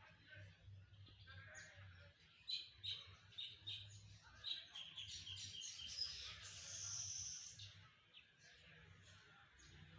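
Birds chirping: a quick run of short, high chirps in the middle, followed by a brief hissy sound, over a faint low hum.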